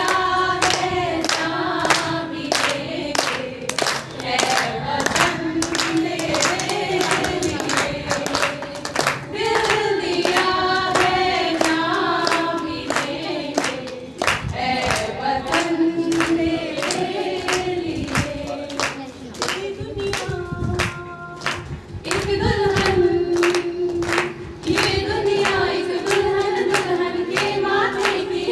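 A group of women singing a song together, with a steady beat of handclaps keeping time, about two a second.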